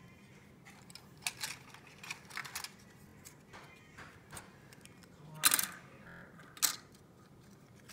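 Plastic model kit parts being handled: scattered short clicks and rustles as the pieces knock against each other and the cardboard box, the loudest and longest about five and a half seconds in.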